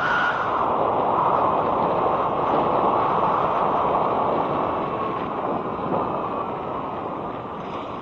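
Wind rushing over a helmet-mounted camera's microphone while riding an electric scooter, a steady rush that slowly eases near the end, with a faint whine that falls a little in pitch.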